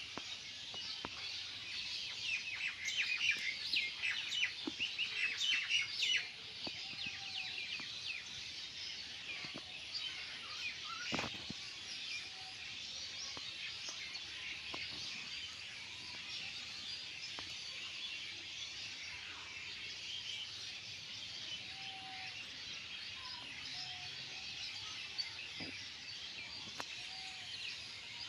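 Many small birds chirping at once in a dense, continuous chorus, loudest in the first six seconds or so, then settling to a steady chatter.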